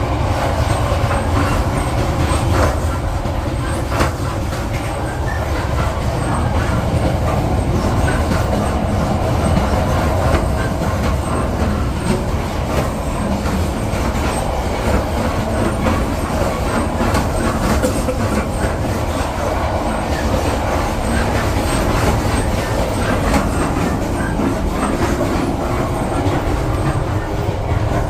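Passenger train running along the track: a steady rumble, with scattered clicks of the wheels over the rails.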